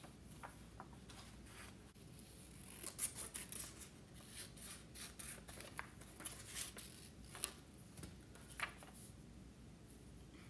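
Scissors snipping paper into thin strips: a faint, irregular run of short snips, busiest through the middle, with some rustling of the sheet.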